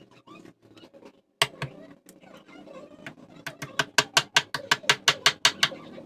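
Knife chopping on a cutting board: two single chops, then a quick even run of chops, about five a second, in the second half.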